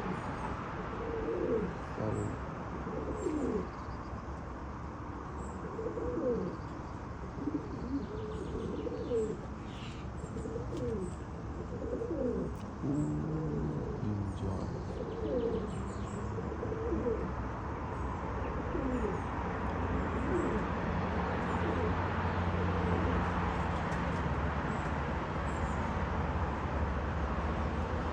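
Domestic pigeons cooing over and over, with faint high chirps of small birds. In the second half a steady low hum comes in underneath.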